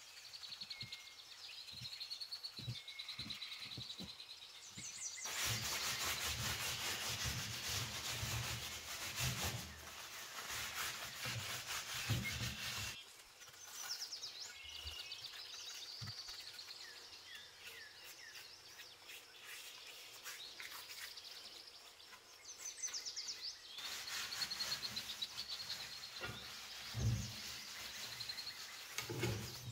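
A brush scrubbing oil over the cast iron plates of an old waffle iron, then a cloth rubbing it in, in two long scratchy stretches, seasoning the iron. Birds chirp faintly in the quieter gaps.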